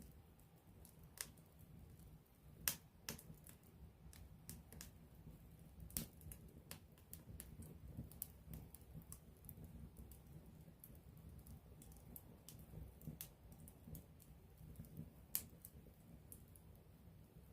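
Close-up wood campfire crackling: irregular sharp pops and snaps over a low, steady rumble, the loudest snaps about three seconds in and again near fifteen seconds.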